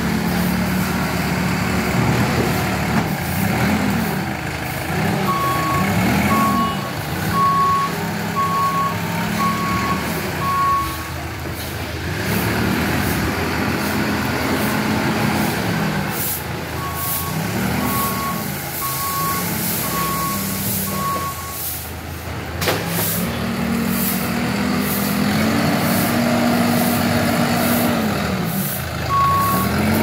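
Tata Hitachi Shinrai Prime backhoe loader's diesel engine revving up and down as it works its loader bucket, with its reversing alarm sounding in runs of steady beeps, about one and a half a second. A single sharp knock comes a little past the middle.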